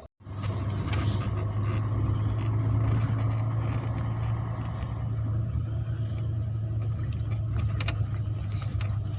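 Steady running noise of a moving road vehicle: a constant low hum with road and wind noise over it, starting just after a brief cut-out.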